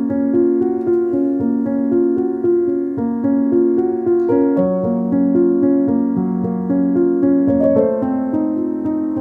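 Background piano music: a steady flow of repeated notes over changing chords.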